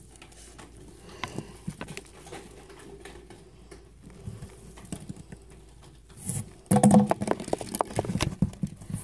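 Foam packing peanuts rustling and knocking about in a cardboard box: scattered light clicks at first, then a louder, dense rustling and handling noise from about two-thirds of the way in.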